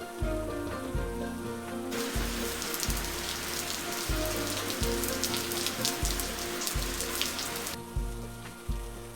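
Background music with a steady beat. About two seconds in, a loud hiss of rain with crackling patter cuts in, and it cuts off suddenly near the end.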